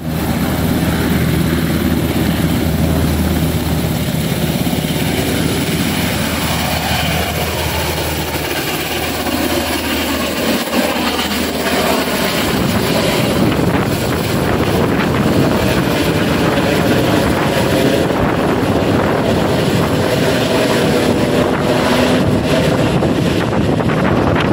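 Black Hawk helicopter's rotors and turbine engines running loud as it takes off and flies overhead. A pitch slides down over several seconds around the middle, and the sound turns rougher and noisier in the second half.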